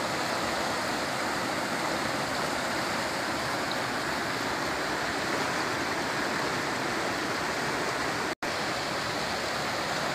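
Fast river rapids rushing steadily over rocks, with a momentary dropout in the sound a little over eight seconds in.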